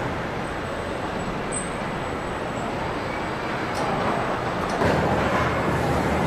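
Steady machinery noise of a car-body assembly line, with industrial robots and conveyors running. A deeper low hum comes in about five seconds in.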